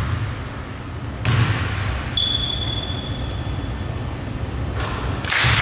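A basketball thudding on a gym court, twice about a second apart, over the low rumble of a large hall. About two seconds in, a thin high tone rings out and fades away over a second or so.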